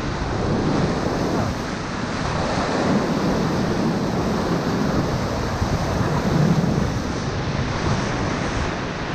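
Whitewater rapid rushing and crashing around an inflatable raft, a loud, steady wash of white water with spray buffeting the microphone.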